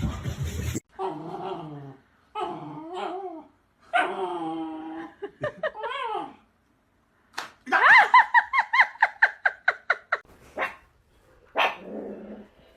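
A dog vocalizing: several separate whine-like calls that waver in pitch, then a quick run of high yips about eight seconds in, at roughly six a second for a couple of seconds.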